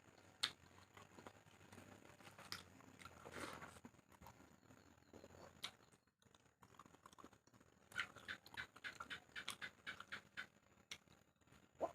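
A person chewing and eating, faint, with soft wet mouth clicks and smacks, coming in a quick run about eight seconds in.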